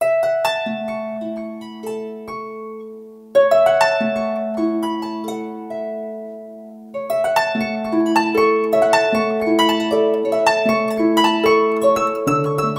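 Harp playing alone: plucked notes that ring on and fade, in broken-chord phrases over a low held note. New phrases begin about three and a half and seven seconds in, and the notes come quicker after that.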